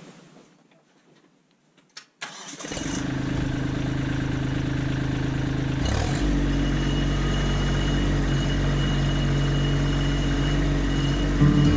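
Kubota LX2610 compact tractor's diesel engine starting about two and a half seconds in and running steadily. About six seconds in its note changes and grows a little louder as it works the front loader's hydraulics to raise the bucket.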